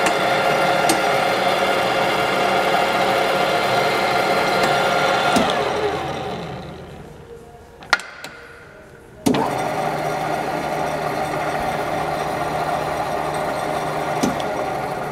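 Deckel FP1 tool milling machine running steadily, then switched off and winding down about five and a half seconds in. While it stands still there is a sharp click as a control on the column is worked, and about nine seconds in it starts again abruptly and runs on steadily.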